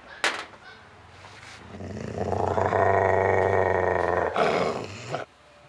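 A dog growling: one long, steady growl of about two and a half seconds, starting a second or two in, then a shorter, fainter one.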